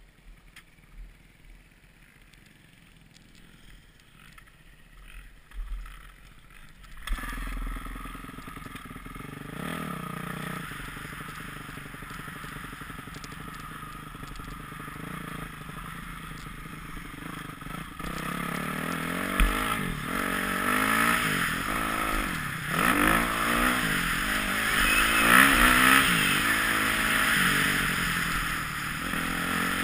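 Motocross dirt bike engine heard from on the bike: quiet with a few knocks at first, then running from about seven seconds in, and from the middle on revving up and down again and again as the bike is ridden.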